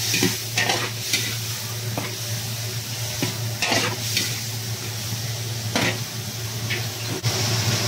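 Squid and vegetables sizzling in a hot wok while a metal ladle stirs them. The ladle scrapes and clinks against the pan every second or two.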